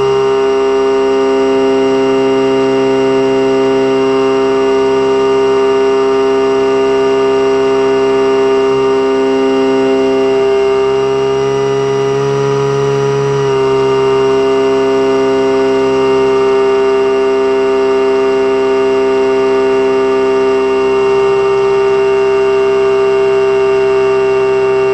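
Electric motor and propeller of a converted Eagle II RC trainer, heard from a camera on the airframe, giving a steady whine in flight. About halfway the pitch rises a little for about a second, then drops back suddenly: a brief throttle change.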